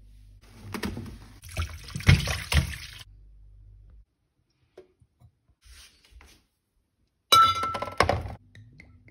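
Glass containers handled: knocks and clinks mixed with liquid sloshing for about two and a half seconds. Later comes a sharp glass clink with a brief ringing tone, as a glass bottle is set down among other glass bottles.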